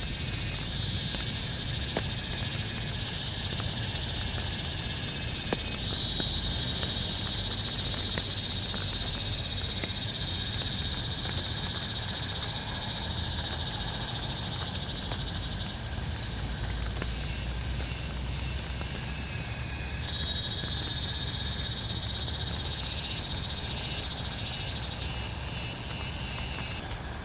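A chorus of frogs calling: a continuous high-pitched trilling that swells and pulses in places, over a low steady rumble.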